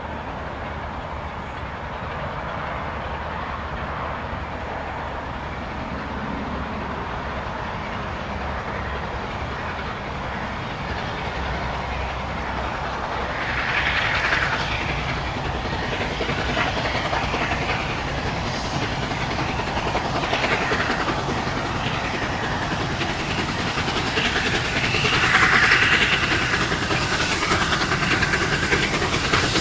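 Steam locomotive working hard with a train of coaches, its exhaust growing louder as it approaches, with stronger surges about halfway through and again near the end.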